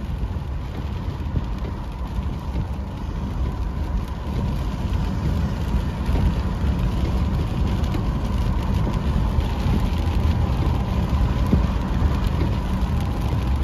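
Car driving at highway speed, heard from inside the cabin: steady road and wind noise, growing a little louder after about four seconds.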